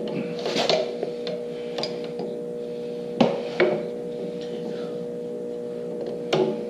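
A few sharp metallic knocks and clanks of tools and wheel parts being handled while a dirt bike's rear wheel and axle are fitted: one right at the start, two close together about halfway through, and one near the end, with softer scuffing between, over a steady hum.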